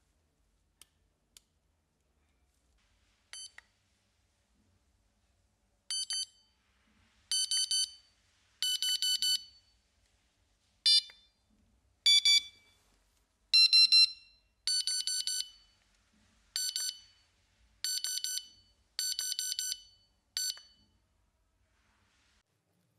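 Electronic carp-fishing bite alarm beeping as its buttons are pressed, stepping through its tone settings. About a dozen short bursts of rapid beeps, the pitch changing from burst to burst, after two faint button clicks at the start.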